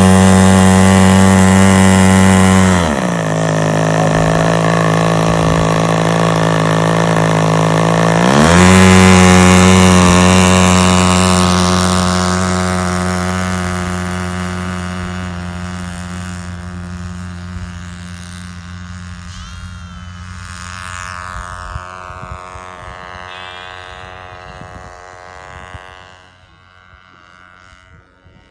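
A Gerald Smith Skylark spark-ignition model aircraft engine runs at full throttle, its propeller buzzing on a steady pitch. About three seconds in the pitch dips for several seconds, then climbs back. The sound then fades away steadily as the plane climbs off and moves into the distance.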